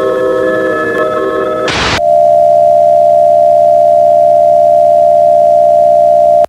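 A held electronic chord of several steady tones, broken about two seconds in by a short burst of static, then a single loud steady electronic tone, like a broadcast off-air tone, that stops abruptly.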